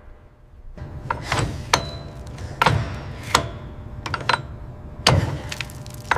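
Heavy wrenches straining on a seized, corroded bolt: a low grinding scrape with a run of sharp, irregular metal knocks and clanks. It starts about a second in.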